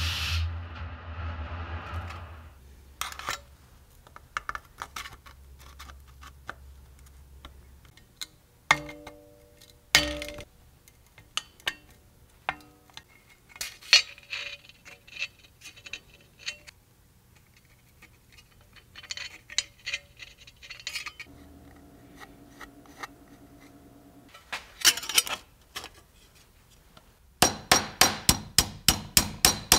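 Metalworking shop sounds: a hiss of air dying away in the first couple of seconds, then scattered clinks and knocks of metal tools and parts with a few short ringing tones. Near the end comes rapid hammering on metal, several strikes a second.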